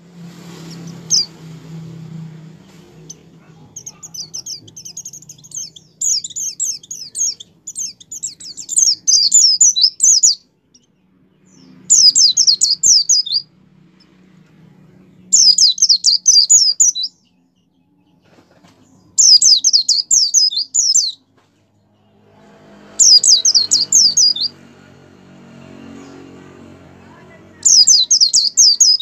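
A caged white-eye (pleci) in full song, singing rapid, high-pitched chattering phrases. The first is a long run of about six seconds, followed by five shorter bursts of a second or two, each three to four seconds apart. A faint low hum sits underneath.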